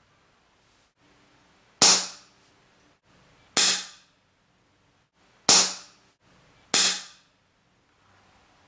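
Four shots from an FX Royale 200 .22 PCP air rifle fitted with its shroud and an add-on two-chamber mini moderator, each a sharp crack that dies away within half a second, the last two about a second apart. With the moderator on, the shot is louder rather than quieter.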